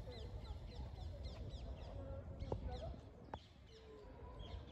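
Small songbirds chirping in quick, repeated short falling notes, over a steady low rumble of wind on the microphone. Two brief clicks come in the middle.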